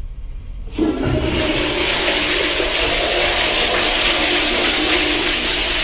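Toilet flushing with a loud, sudden rush of water that starts about a second in and runs on steadily, the flush forceful enough to send water gushing up out of the bowl.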